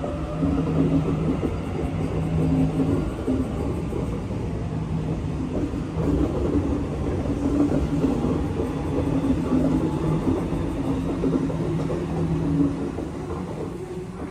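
Double-deck electric suburban passenger train running past along the platform: a dense rumble of wheels on the rails with an on-and-off electric motor hum, fading near the end as the last cars pull away.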